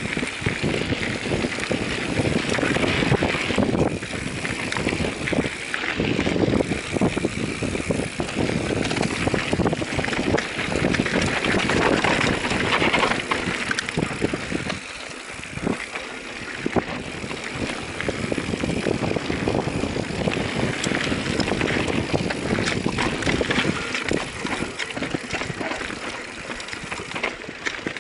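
Mountain bike riding down a dirt forest trail: a steady rush of tyre and riding noise with many small knocks and rattles from the bike over bumps and roots.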